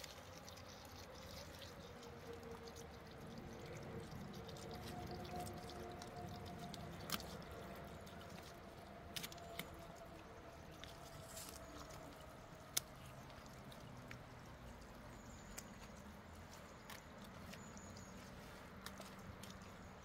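Spring water trickling and dripping around a black plastic hose at the spring's intake, with a few faint sharp clicks as the hose is handled.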